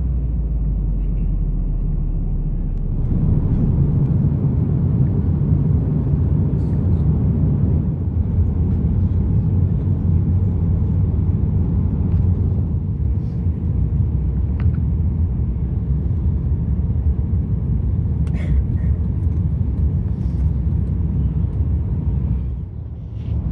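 Steady low rumble of a moving vehicle, a little louder from about three seconds in.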